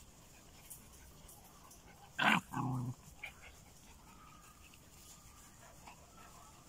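A dog gives one sharp bark about two seconds in, followed at once by a lower, longer call of about half a second.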